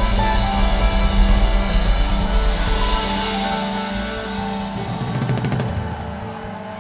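Live acoustic band of grand piano, upright bass and drum kit playing, the music getting steadily quieter. Sustained low notes give way to a quick run of drum strokes about five seconds in, then the sound dies away.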